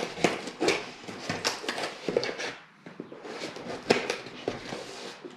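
Kitchen knife slitting the packing tape on a cardboard box and the flaps being pulled open: a quick run of short scrapes, rips and taps, with a louder knock about four seconds in.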